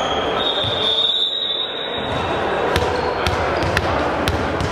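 A long, steady referee's whistle blast in the first two seconds. It is followed by a ball bouncing sharply on the hardwood gym floor about every half second, over echoing hall chatter.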